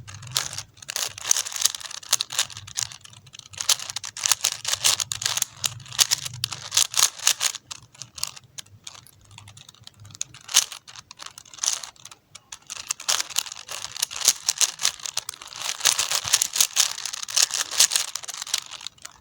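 Plastic 4x4 Rubik's cube being turned fast by hand: rapid clicking and rattling of its layers in quick uneven flurries, with brief pauses between sequences of moves.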